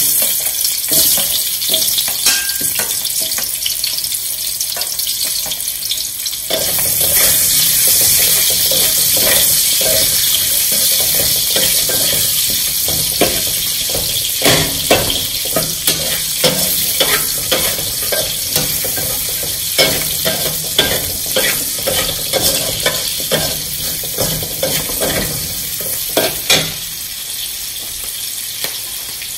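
Chopped onions dropped into hot oil in a wok, sizzling suddenly and then frying steadily. A metal spatula stirs them, scraping and clinking against the wok many times.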